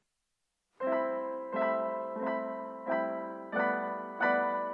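Background keyboard music with piano-like tones that starts about a second in, with a new chord struck at a steady pace of roughly every two-thirds of a second.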